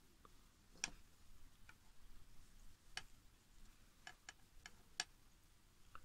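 Near silence broken by about nine faint, irregularly spaced light clicks from a metal crochet hook working yarn close to the microphone.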